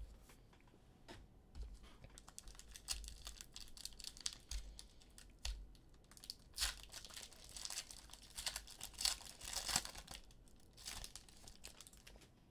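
Foil trading-card pack wrapper being torn open and crinkled in the hands: faint, irregular crackling, busiest in the second half.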